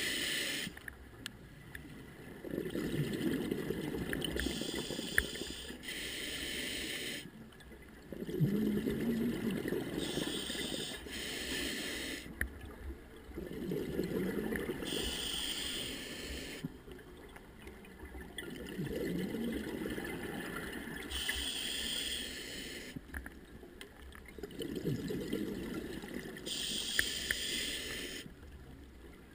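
Scuba diver breathing through a regulator underwater: a hiss on each inhalation alternating with a low, bubbling gurgle of exhaled air, about one breath every five seconds.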